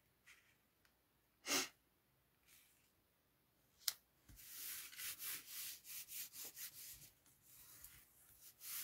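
Soft handling of paper on a card: a short breath about a second and a half in, a small click near four seconds, then a run of quiet rubbing strokes as a paper layer is slid into place and smoothed down by hand.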